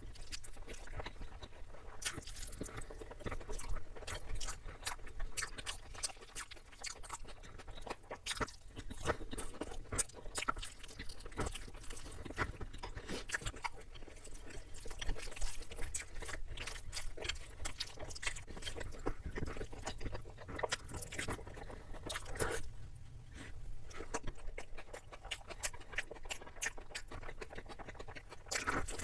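A person chewing and smacking on chicken biryani and mutton curry close to the microphone: a dense, unbroken run of quick wet clicks and crunches.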